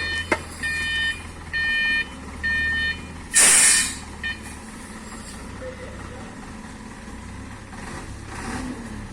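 Dump truck's reversing alarm beeping about once a second over its low-running diesel engine. The beeps stop about three seconds in, followed at once by a loud, half-second hiss of released air as the truck comes to rest. The engine then runs on steadily.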